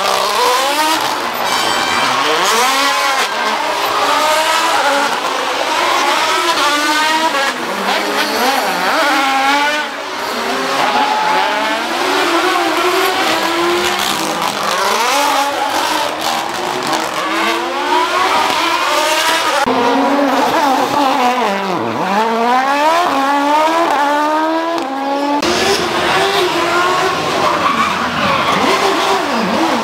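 Rally car engines revving hard on a loose gravel stage, the pitch climbing and dropping again and again with each gear change and lift-off. The sound breaks suddenly a few times where one car's pass is cut to the next.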